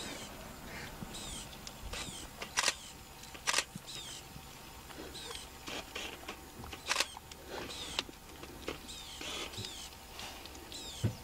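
Repeated short, high chirps, each falling in pitch, coming about every second, with a few sharp clicks among them.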